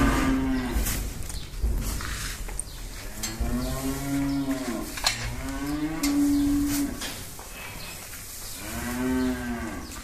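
Dairy cows mooing: a call trailing off at the start, then three long moos about four, six and nine seconds in, with gaps between them.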